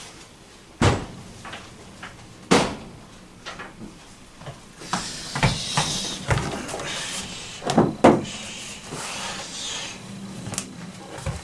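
Wooden knocks and scraping as parts of a grand piano are taken off to get at the dampers: a handful of sharp knocks, two close together about eight seconds in, with rubbing and sliding between them.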